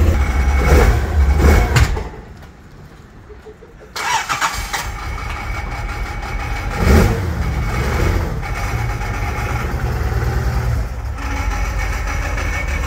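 Carbureted Nissan L28 straight-six on Solex carburettors running with a rough, sputtering idle. It goes quiet about two seconds in, starts again about two seconds later, and settles back to idle with one quick blip of revs a few seconds after.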